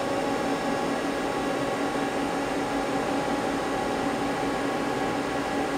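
Steady machine hum and hiss, with a few steady tones and no change throughout, from a machine shop with the CNC lathe powered up and idling.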